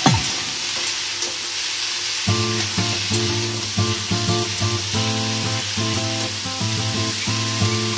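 Potato and vegetable pieces sizzling in hot oil in a kadai while a spatula stirs them. Instrumental background music comes in a little over two seconds in.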